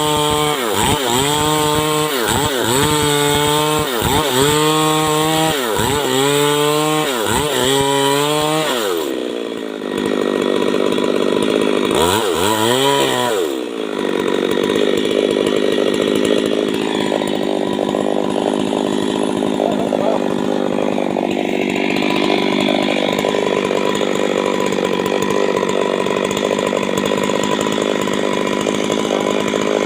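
Stihl MS 382 two-stroke chainsaw revved up and down about once a second for the first nine seconds, then dropping back, with one short rev about twelve seconds in. After that it runs steadily at high speed, cutting wood.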